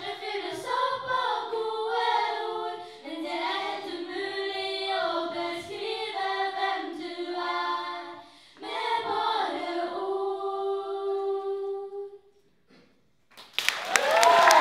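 Small group of young women singing a cappella in harmony through microphones and a PA speaker. The song ends about twelve seconds in, and after a short pause the audience breaks into applause.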